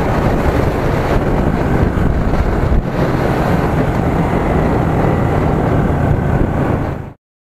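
Yamaha motorcycle ridden at speed: a steady rush of wind on the microphone with the engine running beneath it. The sound cuts off suddenly near the end.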